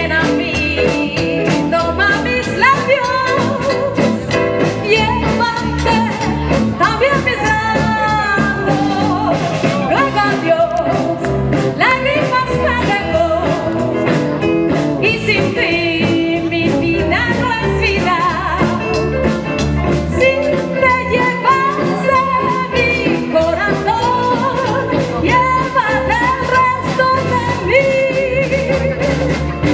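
Live rock band playing through PA speakers: electric guitars and a singer over a steady beat.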